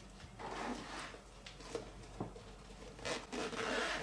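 Handling noise from kit items being picked up and put down: irregular rustling with a few light clicks, busiest near the end.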